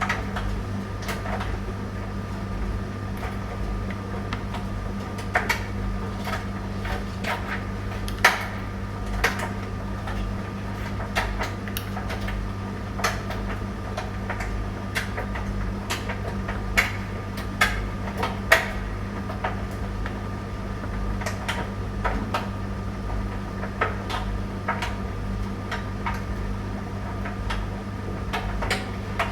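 Tumble dryer running with a steady motor hum and irregular clicks and knocks from the load tumbling in the drum, about one or two a second.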